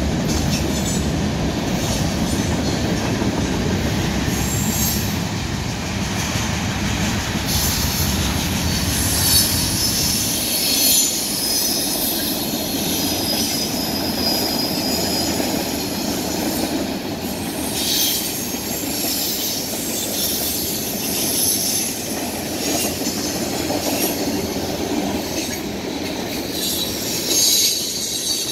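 Freight train of boxcars, covered hoppers and tank cars rolling past, wheels clattering over the rails with on-and-off high-pitched wheel squeal. A heavy low rumble in the first ten seconds or so eases off after that.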